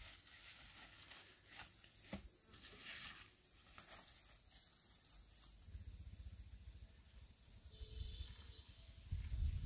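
Faint, steady high-pitched chirring of insects, with a few light knocks and a low rumble coming in about six seconds in and growing louder near the end.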